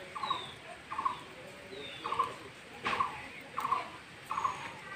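Bird calls: a short rattling call repeats about once a second, with thin falling whistles from another bird above it. A single sharp rustle or snap comes about three seconds in.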